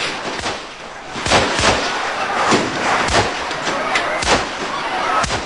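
Gunfire from bodyguards' guns fired wildly into the air: about ten sharp shots at uneven intervals, over the noise of a rally crowd.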